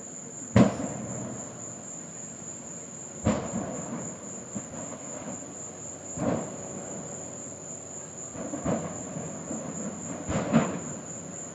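Propane tanks exploding in a burning propane plant: a sharp bang about half a second in, then four more bangs a few seconds apart. Steady insect chirping runs underneath.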